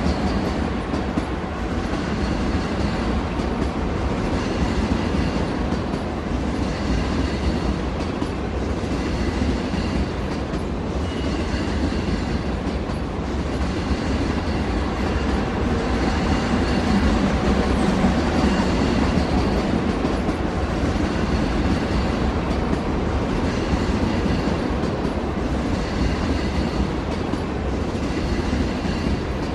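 Train running along the track: a steady rumble with a faint, regular clatter of wheels on the rails.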